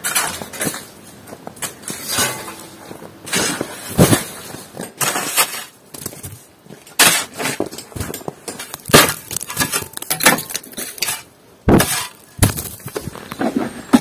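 Snow and ice being knocked off a covered porch roof with a long wooden-handled tool: irregular knocks, crunches and breaking sounds as clumps break away and fall.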